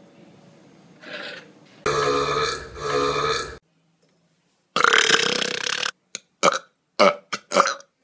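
Two men belching on command, one after the other. The first burp is long and loud and comes in two swells. After a brief silence the second man lets out another long burp, then a handful of quick short bursts.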